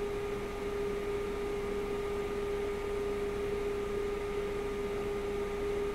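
A steady hum holding one mid-pitched tone, with fainter higher and lower tones beneath it, unchanging throughout.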